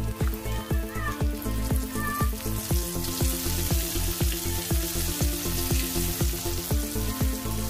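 Flour-coated chicken pieces sizzling as they fry in hot oil in a metal pan, the sizzle growing stronger about three seconds in as more pieces go in. Background music with a steady beat plays throughout.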